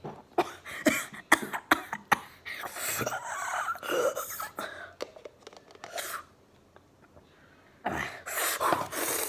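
A person coughing several times in quick bursts, then breathing noisily, reacting to the burn of the pepper in his mouth.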